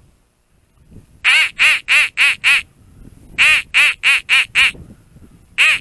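A duck quacking loudly in rapid runs, each quack rising and falling in pitch. There are five quacks, a pause, five more, then another run begins near the end.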